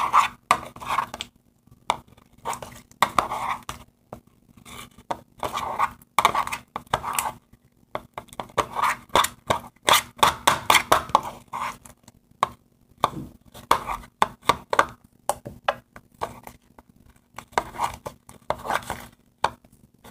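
Plastic spoon stirring and scraping sticky, half-formed slime of glue, shaving cream and contact solution in a bowl: a busy, irregular run of short clicks, scrapes and squelches.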